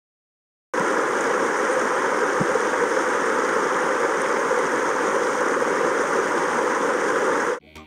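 Rushing water of a mountain stream: a steady, even wash that cuts in abruptly just under a second in and cuts off suddenly near the end.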